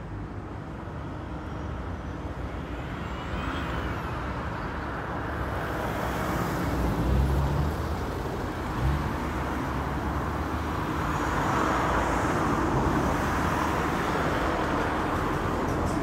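Road traffic going by: a steady rush of passing vehicles with a low rumble, swelling twice, about seven and twelve seconds in.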